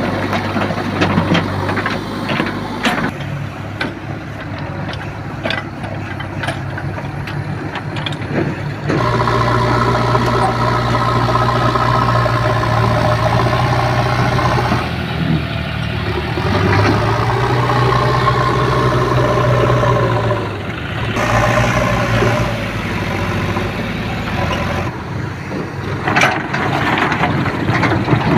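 JCB 3DX backhoe loader's diesel engine running, with a few sharp knocks in the first few seconds. About a third of the way in the engine note rises and strengthens, as under hydraulic load, dips briefly twice, then eases back near the end.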